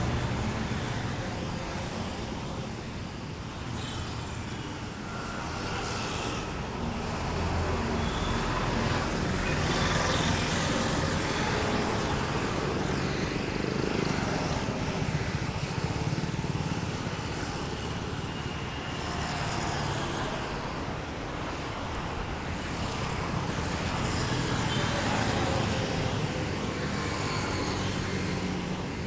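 Steady stream of road traffic, cars and heavier vehicles, running down an elevated road, swelling and easing as vehicles pass every few seconds.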